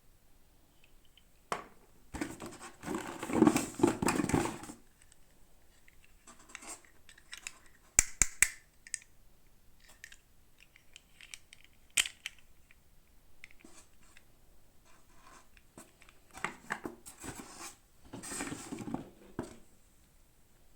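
Toy packaging being handled and opened by hand: bursts of scratching, rustling plastic, with a cluster of sharp clicks about eight seconds in and a single click about twelve seconds in.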